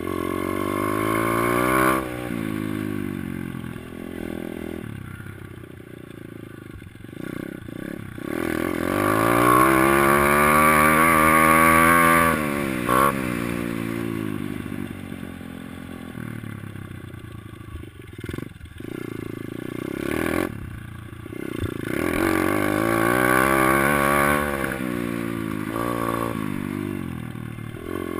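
Kawasaki KLX110L dirt bike's small single-cylinder four-stroke engine revving up and down as it is ridden, the pitch climbing under throttle and falling away again and again. It is loudest about ten to twelve seconds in. It is heard close up from the rider's helmet.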